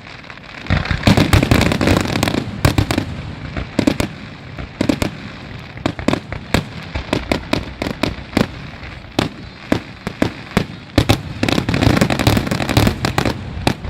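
Many fireworks going off at once: a dense, irregular barrage of sharp bangs and pops, thickest about a second in and again near the end.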